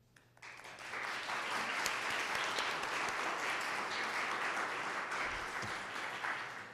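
An audience applauding: the clapping builds up within the first second, holds steady, and dies away near the end.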